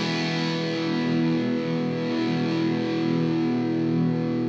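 Electric guitar played through an Amptweaker FatRock distortion pedal: one distorted chord held and left to sustain, its notes ringing steadily.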